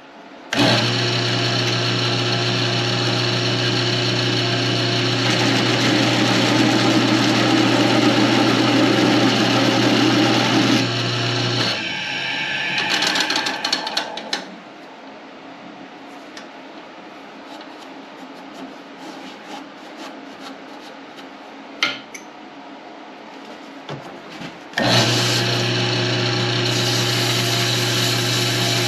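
Wood lathe starts up and runs with a steady motor hum, and a leather overstitch wheel used as a texturing tool is pressed lightly against the spinning wood, adding a rough rubbing noise for several seconds. The lathe is switched off shortly before halfway and dies away over a couple of seconds, a single knock sounds in the quieter stretch, and the lathe starts again near the end.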